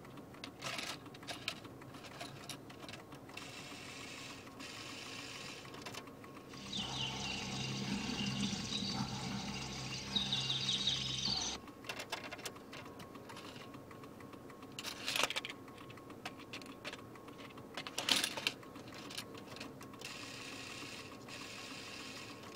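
Sony car cassette deck's tape mechanism clicking and whirring as it loads and runs an MP3 cassette adapter, with a louder stretch of motor running about seven seconds in that lasts some five seconds, and sharp clicks later on. The deck does not get on with the adapter.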